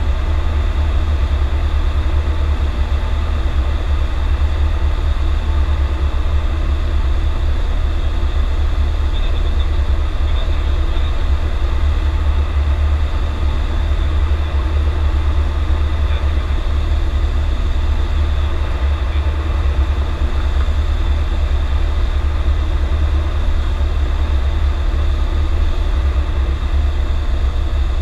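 Steady drone of a Cessna 172's piston engine and propeller heard from inside the cabin, on final approach to landing.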